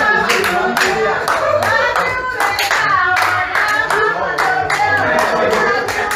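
A group of people singing together while clapping their hands in a steady rhythm, about three claps a second.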